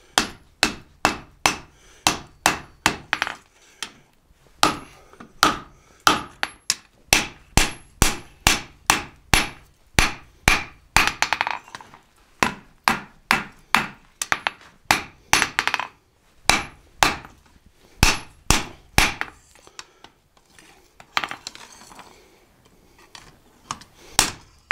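Hand hammer striking red-hot leaf spring steel on an anvil, about two to three blows a second in runs broken by short pauses, with a faint high ring from the anvil. The blows come fewer and softer near the end, then one last hard strike.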